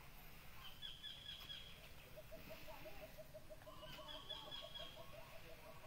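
Birds calling faintly: a high chirping phrase heard twice, and from about two seconds in a steady run of low repeated notes, about six a second.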